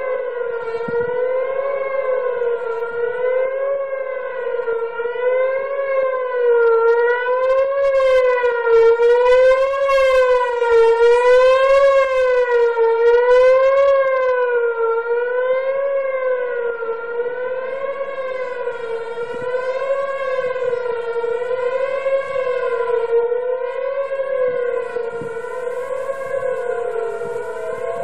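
Outdoor warning siren sounding during a routine monthly test, a loud wavering tone whose pitch rises and falls about every two seconds. It swells louder midway and eases back toward the end.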